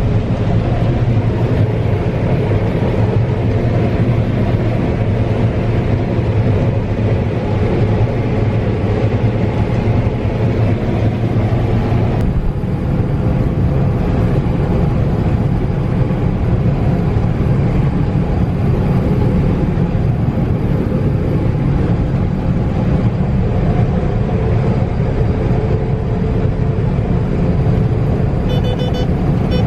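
Heavy farm machinery at corn harvest running steadily, a loud even drone that does not change in speed. A few quick high beeps sound near the end.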